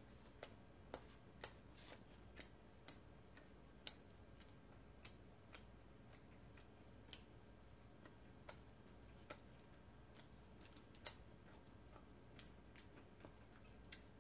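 Faint wet mouth clicks and smacks of chewing soft corn bread, about two a second and uneven in strength.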